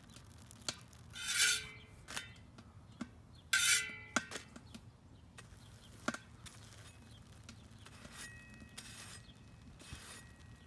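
Metal clinking and scraping on a hot stainless steel griddle disc: a scatter of sharp clicks and two louder ringing scrapes, about a second and three and a half seconds in.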